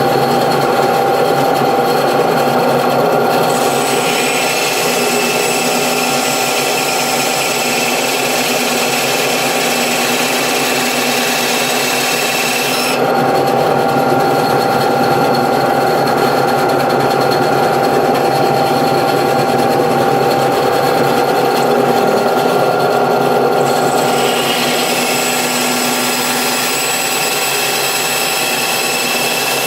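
Small electric power tool running steadily, with a harsher, higher cutting noise layered on from about three to thirteen seconds in and again from about twenty-four seconds in as it bites into the workpiece.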